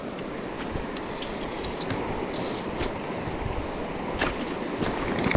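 River water rushing over a rocky, shallow riffle: a steady, even rush, with a few faint clicks.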